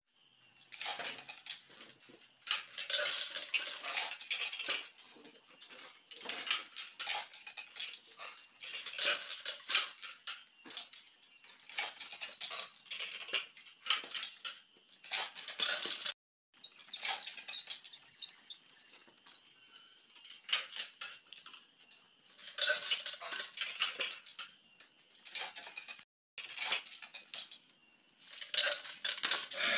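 Irregular metallic clinks and knocks from a steel tire-clamping stand being worked, its jaws and hand wheel clattering as a truck tire is handled and clamped.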